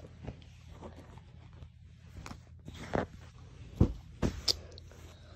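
Handling noise as clothing and a small packaged item are moved about close to the phone's microphone: soft fabric rustling, then four sharp knocks in the second half, one much louder than the rest.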